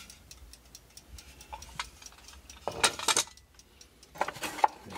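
Hand rummaging inside an antique wooden wall-clock case, scraping and knocking against the wood, loudest about three seconds in. A clock ticks steadily underneath.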